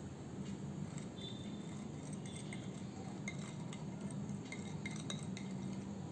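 Scattered light clinks of a drinking glass knocking against a glass mixing bowl and a wire whisk as powdered sugar is tipped and tapped out of it, most of them between about three and five seconds in. A low steady hum runs underneath.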